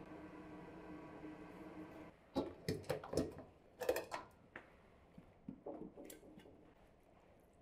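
A steady hum with several fixed pitches cuts off about two seconds in. Clinks and knocks of a stainless steel colander and a metal pot follow, as pieces of cooked meat are lifted from the one and laid into the other by hand: a louder cluster, then a quieter one.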